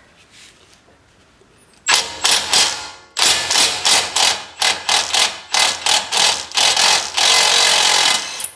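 Impact wrench hammering on an 18 mm socket, undoing the outer tie rod nut in a string of short bursts from about two seconds in. Near the end it runs steadily for about a second as the nut comes off, then stops.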